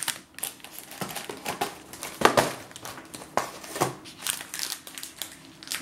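Packaging being handled: a cardboard cake box and a plastic-wrapped snack cake rustling and crinkling in irregular bursts, with a few sharper crackles, the loudest a little over two seconds in.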